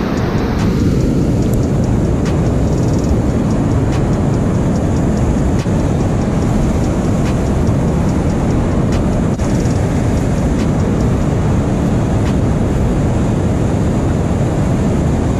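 Loud, steady rush of water churning from a dam spillway into the river, with a few faint clicks.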